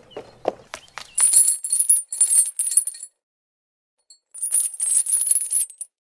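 A small metal chain with hooks clinking and jingling as it is picked up and handled, in two spells of about two seconds each, after a few light clicks at the start.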